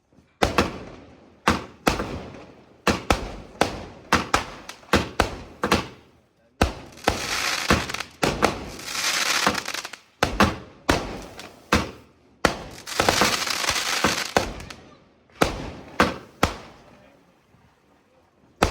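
A multi-shot firework cake firing: a rapid series of sharp bangs about two or three a second, each trailing off. Two stretches of dense hissing come in the middle.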